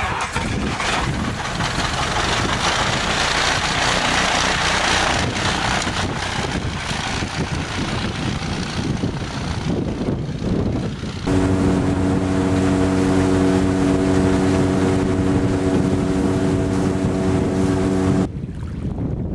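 Cessna 172 floatplane engine running as the plane taxis on its floats, with water spray and wind noise on the microphone. About eleven seconds in, the sound switches abruptly to a steady, even engine hum, which cuts off suddenly shortly before the end.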